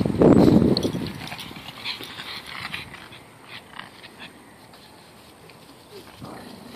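Small dogs play-fighting: a loud rough dog growl in the first second, then faint scattered scuffling as the wrestling goes on.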